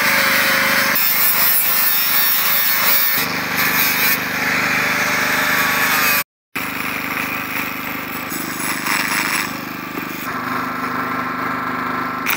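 Electric angle grinder with a flap sanding disc grinding down and smoothing carved wood: a steady motor whine under the scraping of the disc on the wood, which shifts in pitch as the pressure changes. The sound cuts out briefly about halfway through, then resumes.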